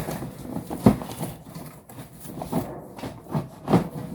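Plastic shelf rack parts knocking and clattering as they are taken out of the box, a few separate hollow knocks with the loudest about a second in.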